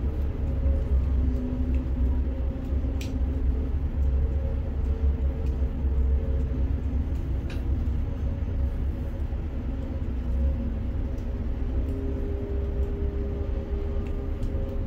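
Container crane machinery heard from the operator's cab: a steady low rumbling drone with faint motor hums while the crane carries a suspended container out over a ship's deck. The hum shifts in pitch about twelve seconds in.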